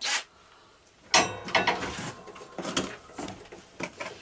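Metal hand tools and sockets clinking and clattering while being rummaged through, after a single sharp click.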